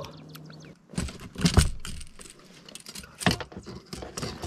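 Irregular metallic clicks and clinks of fishing pliers and a diving crankbait lure being handled while a fish is unhooked in a landing net, with a few duller knocks mixed in.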